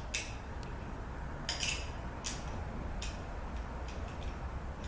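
Light metallic clicks and clinks of small transmission parts being handled on a workbench, four or five brief taps over a steady low hum.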